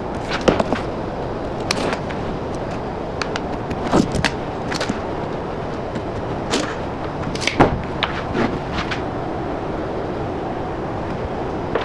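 Scattered light taps, clicks and knocks from marking out and handling OSB board with a pencil and tape measure, over a steady background hiss; the taps stop about nine seconds in.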